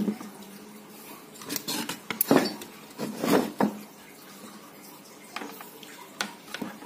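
Knocks and metallic clinks as an amplifier circuit board fitted with aluminium heatsinks is handled and tipped onto its side, several separate strikes spread through a few seconds.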